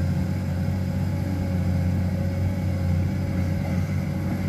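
Komatsu hydraulic excavator's diesel engine running steadily with a low, even hum.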